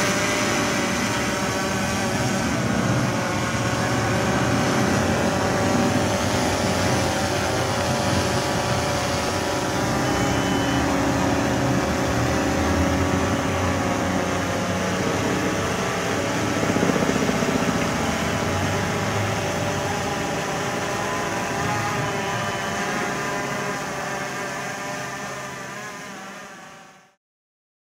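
Quadcopter drone (DJI Phantom 3 Professional) in flight, its electric motors and propellers giving a steady buzzing hum of several tones. It fades out near the end.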